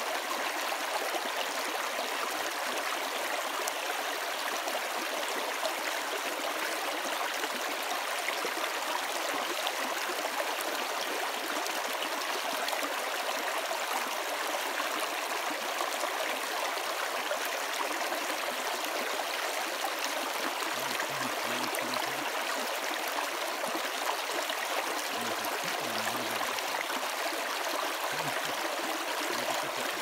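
Shallow mountain river babbling and splashing over rocks close by: a steady, even rush of water.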